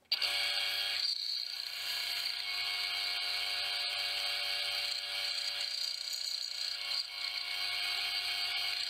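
Band saw running steadily, its blade cutting a small block of wood.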